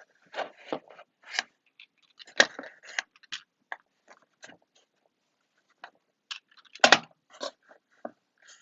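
Fidget toys being handled and moved about: irregular clicks, knocks and rustles, with the two loudest knocks about two and a half and seven seconds in.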